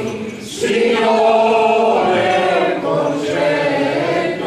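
Several voices singing a traditional song together, led by a man singing into a microphone, in long held notes. There is a brief breath between phrases just under a second in, then the singing comes back stronger.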